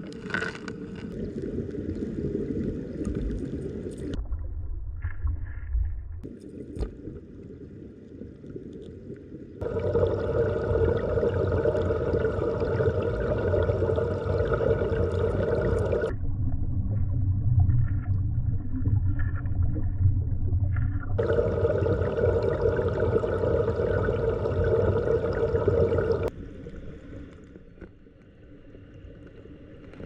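Rushing stream water heard underwater through a camera's waterproof housing: a steady, muffled wash that changes abruptly in loudness and tone several times.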